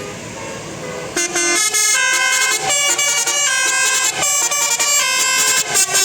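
Indonesian bus "telolet" multi-tone air horn playing a fast tune, starting about a second in over bus engine noise. The notes change several times a second.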